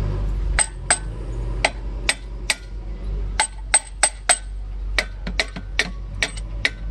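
Hand hammer tapping steel on the side bearing cap of a Tata truck differential while the crown wheel and pinion are being fitted: an irregular run of sharp metallic taps, with a few harder blows between about three and a half and four and a half seconds in.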